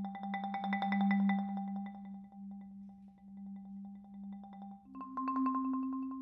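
Background music: quickly repeated struck notes over a held low note, shifting to a higher chord about five seconds in.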